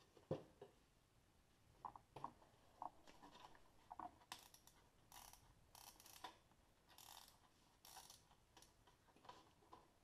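Faint handling noises from a contact grill being turned in the hands: a knock just after the start and a few small clicks, then several short scraping rubs over the middle while its temperature dial is fingered and turned.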